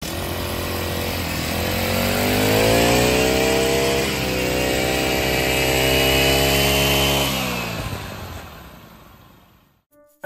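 Honda UMK450T brush cutter's 47.9 cc four-stroke single-cylinder engine running, its pitch rising twice as the throttle is opened. About seven seconds in the revs drop and the sound fades away.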